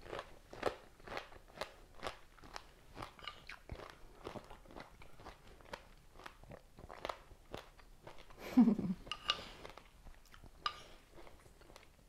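Close-up crunching and chewing of a mouthful of pomegranate seeds and berries, a run of small crisp crunches about twice a second, with a short hummed 'mm' about eight and a half seconds in.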